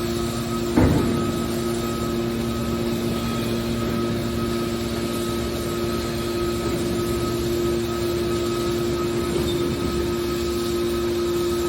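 Baler machine running with a steady hum of several fixed tones, like an electric motor and pump, with a single sharp knock about a second in.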